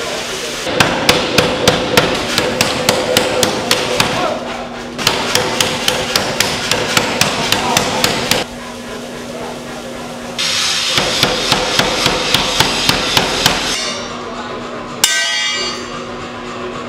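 Power hammer pounding a red-hot steel bar in three runs of rapid blows, about four a second, with a steady hum from the running machine in the pauses between runs. Near the end there is a single sharp metal clang that rings on briefly.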